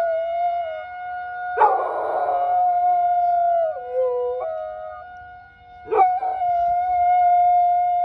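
A dog howling along with the steady wail of a tornado warning siren under test. The howls waver and dip in pitch, and new howls start sharply about a second and a half in and again about six seconds in.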